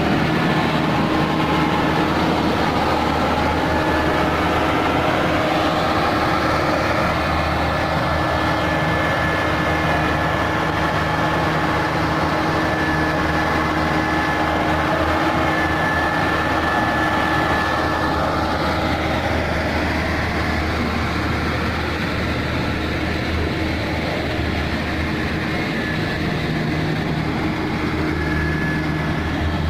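A heavy engine running steadily at a constant speed, with a faint high whine for part of the time.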